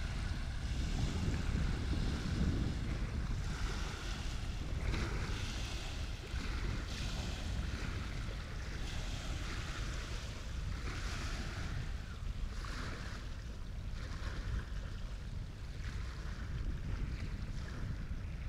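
Wind buffeting the microphone over the wash of waves, with surges of splashing hiss every second or two.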